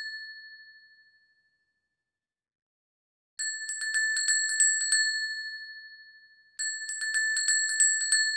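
A small handbell rung in quick runs of rapid strikes, each run ringing on one bright pitch and fading out. One run dies away in the first second or so, a new one starts about three and a half seconds in, and another begins about a second and a half before the end.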